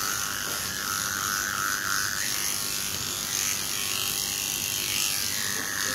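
Electric dog grooming clipper running steadily as its blade shaves a matted coat down close to the skin. Its tone shifts slightly about two seconds in.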